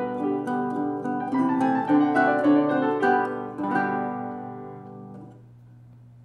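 Classical guitar and grand piano playing a duet passage together. They end on a final chord that rings out and fades about five seconds in, leaving a faint steady low hum.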